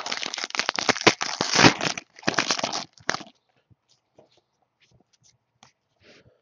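Plastic wrapper of a trading-card pack crinkling and tearing for about three seconds, then a few faint taps and rustles of cards being handled.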